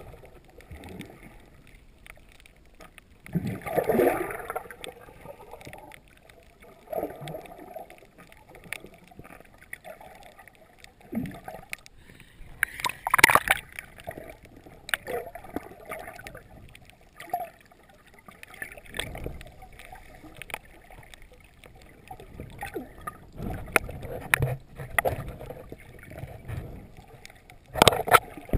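Water sloshing and gurgling around an underwater action camera as a snorkeler swims, in muffled swishes that come irregularly every second or few. There is a louder splash near the end as the camera comes up to the surface.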